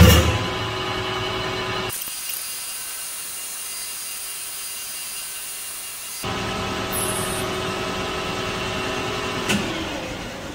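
Metal lathe running at about 800 RPM with a steady whine, its cutting tool facing the end of a PVC tube. The sound starts abruptly, changes sharply about two seconds in and again about six seconds in, and there is a short click near the end.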